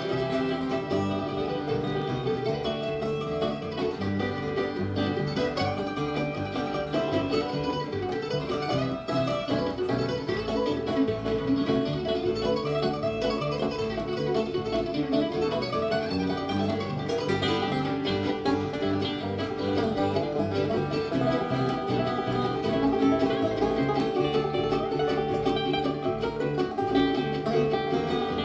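Live bluegrass band playing an instrumental break, with acoustic guitar and banjo picking a steady tune.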